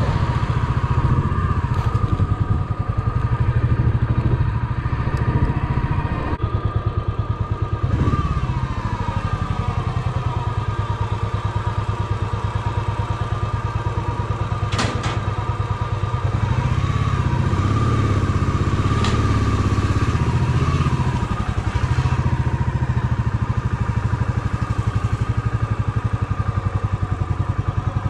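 Royal Enfield motorcycle engine running steadily while being ridden, with a sharp click about halfway through.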